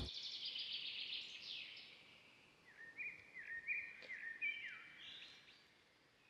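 Faint birdsong: a high, fast trill, then a run of short chirping notes that slide down in pitch, fading out near the end.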